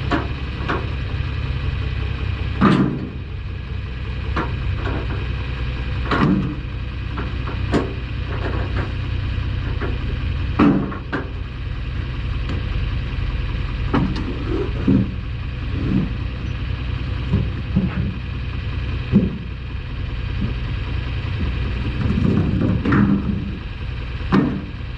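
Diesel engine idling steadily, with scattered knocks and clanks over it.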